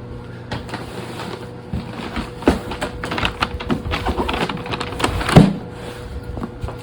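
A cardboard firework shell kit box being handled and turned over: irregular rustles, scrapes and knocks of cardboard, the loudest knock about five seconds in.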